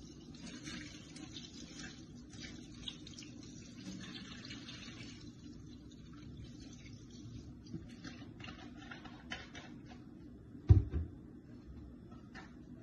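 Liquid cleaner poured in a thin stream onto wet kitchen sponges in a stainless steel sink, splashing and trickling, with a few small clicks. Near the end comes a dull double thump, the loudest sound here.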